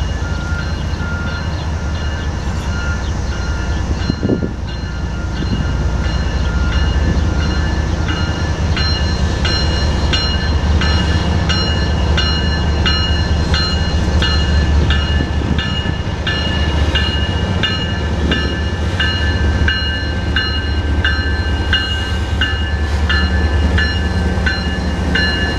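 Union Pacific diesel-electric locomotives hauling a freight train approach and pass close by. The engines' low rumble grows louder about a quarter of the way in. Over it, a high ringing repeats about one and a half times a second.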